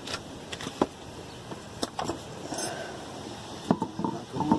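Scattered knocks and clunks from a car wheel being handled and fitted back onto the hub, a few single knocks, then a cluster of ringing clunks near the end.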